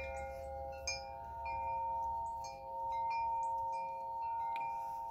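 Chimes ringing: several long tones held and overlapping, with higher short notes coming and going, and a few faint clicks.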